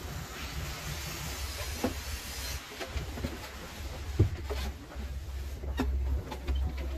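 Carpet extraction machine running: a steady hiss over a low hum, with a few short knocks, the loudest about four seconds in.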